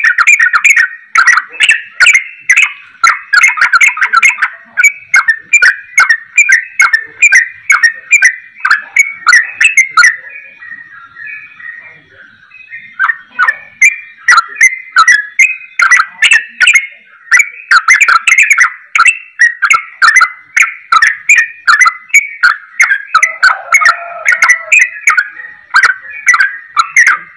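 Yellow-vented bulbul (trucukan) singing fast and continuously, a rapid run of short whistled and chattering notes in a style likened to the straw-headed bulbul (cucak rowo). The song pauses briefly about ten seconds in, then resumes just as rapidly.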